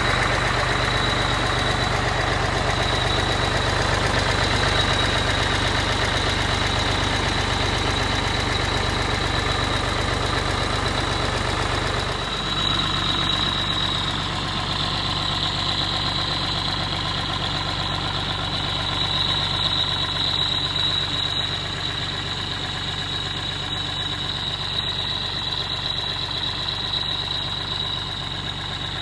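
Diesel engine of a 2003 Vögele Super-Boy asphalt paver idling steadily, with a steady high-pitched whine over it. The sound shifts and becomes slightly quieter about twelve seconds in.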